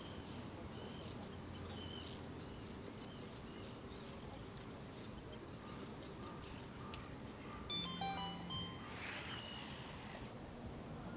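Faint birdsong: scattered short chirps, then about eight seconds in a brief run of clear whistled notes, over a faint steady low hum.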